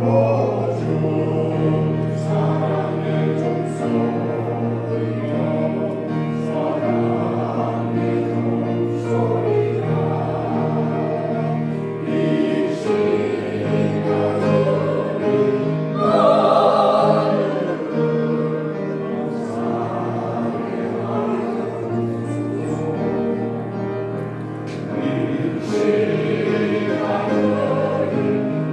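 Choir singing a Korean gospel hymn, several voice parts holding long chords in phrases that swell and ease.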